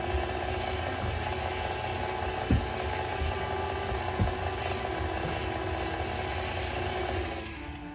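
KitchenAid Classic Plus stand mixer running, its wire whisk beating cake batter in a stainless steel bowl: a steady motor whir with two brief knocks, cutting off near the end.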